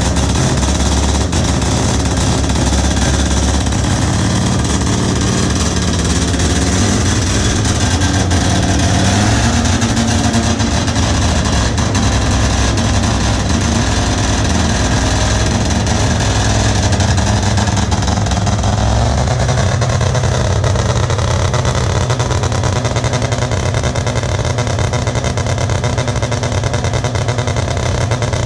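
Mazda B2000's 12A rotary engine running through a new full stainless exhaust, its note shifting up and down in pitch a few times.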